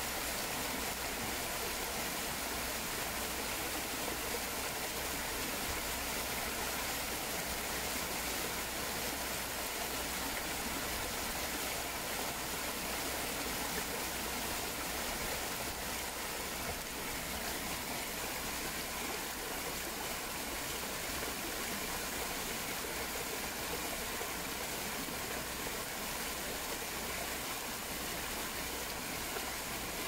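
Small waterfall pouring over a ledge of stacked rocks into a pool: a steady, unbroken rush and splash of falling water.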